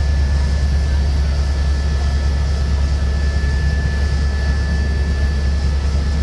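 Helicopter in flight heard from inside the cabin: a loud, steady low rumble with a thin, steady high whine over it.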